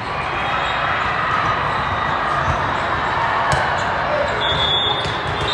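Balls bouncing on a hard gym floor over the steady din of a busy volleyball hall, with a few short high squeaks near the end.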